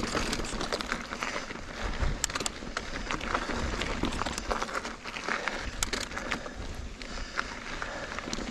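Mountain bike rolling over a dirt and rock singletrack: a steady rush of tyre and trail noise with frequent sharp clicks and rattles from the bike.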